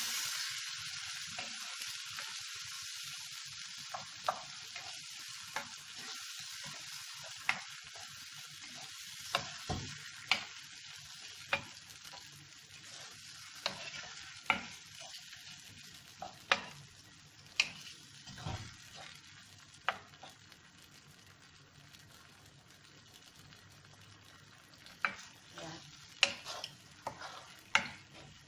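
Onions, bell pepper and tomato paste sizzling in a non-stick frying pan as a wooden spoon stirs them, with sharp knocks of the spoon against the pan about once a second. The sizzle dies down gradually.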